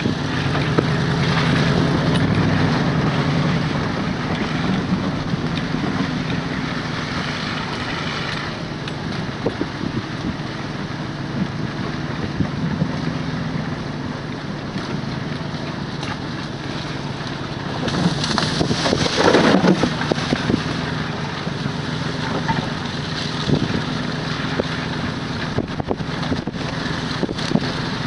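A vehicle engine running steadily at a low hum, with wind and rushing noise over it; the noise swells louder for a couple of seconds past the middle.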